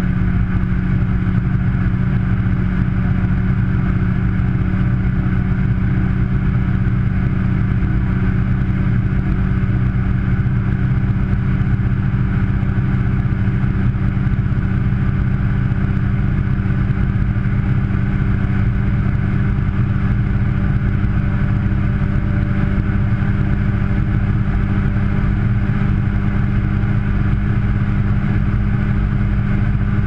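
Front-loading washing machine drum spinning fast on its spin cycle, heard from inside the drum: a steady, loud drone with a constant low hum that does not change.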